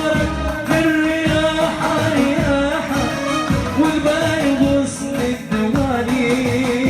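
Arabic pop song playing: a wavering, ornamented melody line over a steady percussion beat, with no clear sung words.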